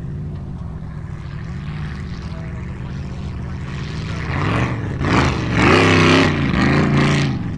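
Formula Offroad racing buggy's engine, steady at first, then revving hard from about four seconds in, its pitch rising and falling again and again as it drives up a steep dirt slope under full load.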